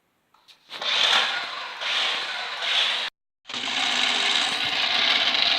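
Toy remote-control car running, its small electric motor whirring and its wheels grinding over the ground in a steady rough rasp. It starts just under a second in, stops dead about three seconds in, and starts again half a second later.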